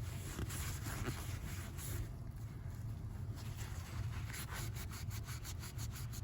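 Paper towel rubbing and scrubbing as the dirty inside of a lawnmower carburetor is wiped out, in a series of short strokes that come quicker in the second half.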